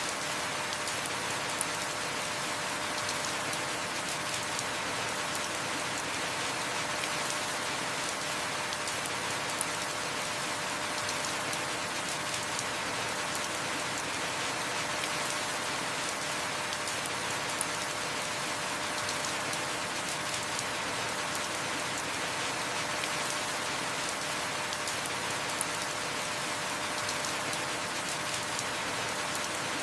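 Heavy rain falling steadily, with a sharp tick of a drop every several seconds.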